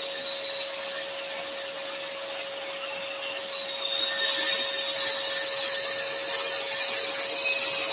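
Axminster Trade AT406SS scroll saw running, its spiral blade cutting a thin wooden panel, together with the steady hiss and high-pitched whine of a small craft extractor drawing air through the saw table.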